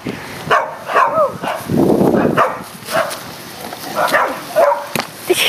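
A dog barking in short repeated barks, with a brief rushing noise about two seconds in.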